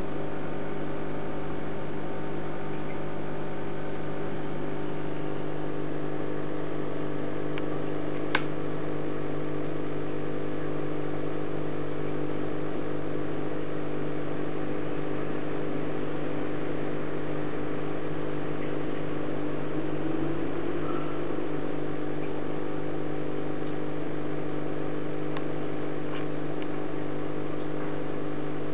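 Aquarium pump humming steadily, with a single short click about eight seconds in.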